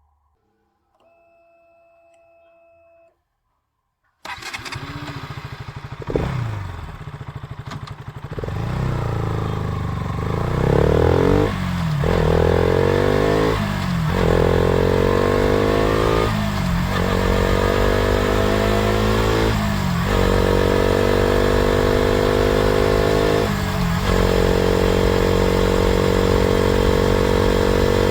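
KTM RC 200's single-cylinder engine starting about four seconds in and running, with a short blip of revs. The engine note then climbs in stages, broken by four or five brief dips like upshifts, and settles into a steady high note.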